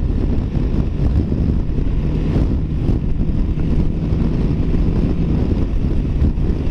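Wind rushing over the microphone with the Honda Rebel 300's single-cylinder engine running steadily underneath at about 45 mph.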